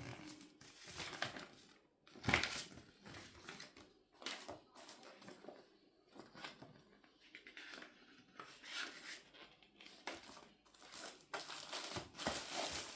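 Packaging being handled and opened: irregular crinkling, rustling and tearing of wrapping, with one louder rip or crunch a couple of seconds in.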